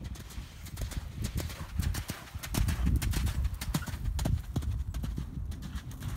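A horse's hooves thudding in a rapid rhythm on sand arena footing as it canters toward and over a show jump, the thuds growing louder about halfway through.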